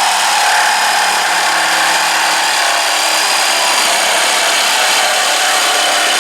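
Hart cordless reciprocating saw cutting through a piece of hard pallet wood, running steadily the whole time.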